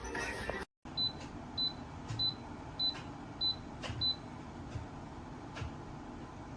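Dreo space heater beeping six times in quick succession, short high electronic beeps as its temperature settings are stepped, over the heater's steady low fan hum, with a few faint clicks after.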